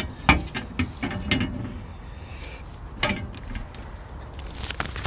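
A metal stove chimney with a hinged rain cap is being handled and pushed down into its roof collar. It gives a string of sharp metallic clicks and knocks, with a short scrape about halfway through.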